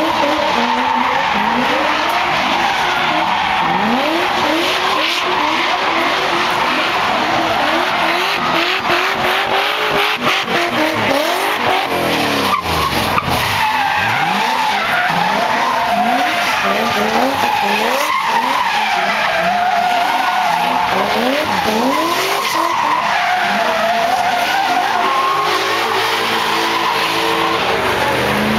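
Drift cars sliding sideways: engines revving up and falling back again and again over continuous tyre squeal. Near the end one engine holds a steadier note.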